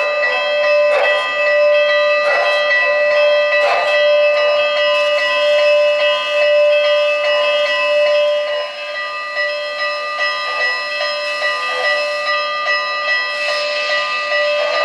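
Sampled steam-locomotive bell from an O-gauge model N&W J-class locomotive's sound system, ringing steadily with a fresh stroke about every second and a half, the strokes fainter after the first few. A hiss rises near the end.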